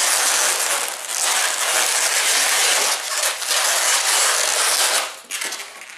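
Latex modelling balloon being rubbed and twisted by hand, with a dense squeaking, rasping rubbing that stops about five seconds in.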